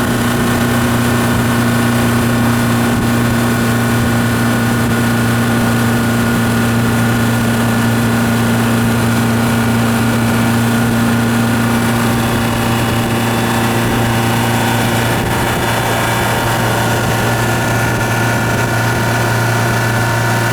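Yamaha F150 150 hp four-stroke outboard engine running steadily at idle, a constant low hum; one of its tones drops away about fifteen seconds in.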